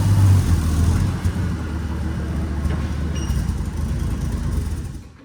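A vehicle engine running steadily with a low, pulsing sound that fades out near the end.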